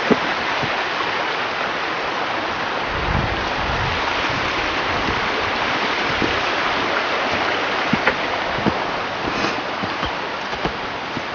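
Steady rushing of water from a stream, with scattered footsteps on a dirt path.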